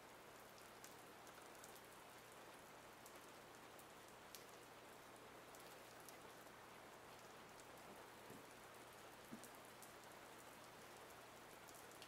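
Near silence: a faint steady hiss with a few soft, brief ticks.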